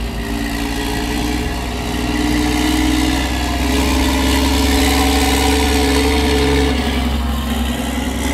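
Claas Xerion 4500 tractor's Caterpillar C13 diesel engine running as the tractor moves off with a loaded compost spreader, its note rising a little and growing louder about two seconds in.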